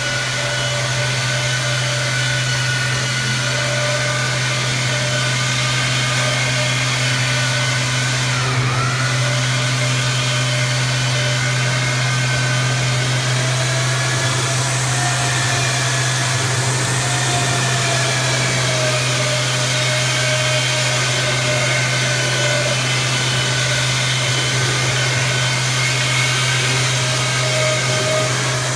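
A motor-driven machine running steadily: a constant low hum with a higher whine that wavers slowly in pitch.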